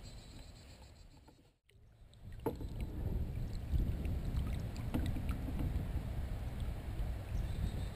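Kayak on the water: a steady low rumble with a few light knocks. The sound fades to near silence about a second and a half in, then picks up again.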